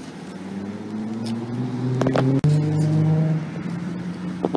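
A car's engine accelerating as it drives over the level crossing. The pitch rises, then drops about two and a half seconds in as it changes gear, and there are a few sharp knocks around two seconds in.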